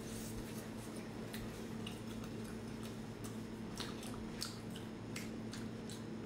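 A person biting and chewing sticky glazed meat: irregular wet smacks and small clicks, over a steady low hum.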